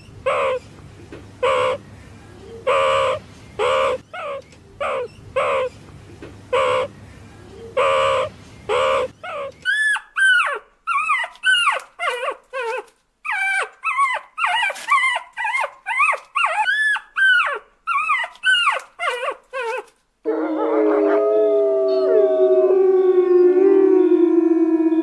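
Meerkats giving short repeated calls, about one a second, over a hissy background. About ten seconds in, a puppy yelping and whining in quick cries that rise and fall. About twenty seconds in, wolves howling together in several long overlapping howls.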